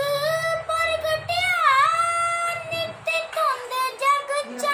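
A boy singing a Sikh devotional hymn (shabad) unaccompanied in a high child's voice. He draws out long held notes, with one note dipping and rising again in pitch about halfway through.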